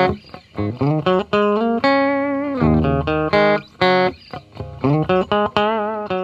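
Instrumental intro music: a melody of plucked notes, several sliding up in pitch.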